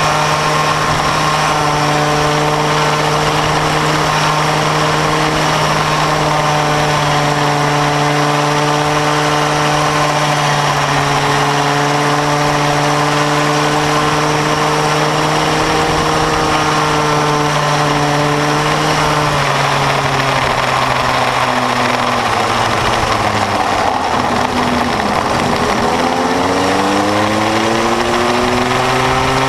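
Bambino go-kart's small two-stroke engine running hard, heard from its onboard camera with wind noise over it. Some twenty seconds in the note sinks as the kart slows for a bend, then climbs again as it accelerates away.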